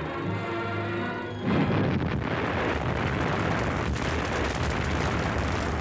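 Music with held tones, cut off about a second and a half in by a sudden loud explosion that runs on as a dense rumble with sharp cracks in it.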